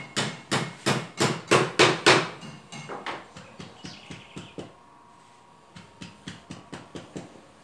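Repeated hammer blows, about three a second and loud for the first two to three seconds. Fainter, quicker blows follow near the end.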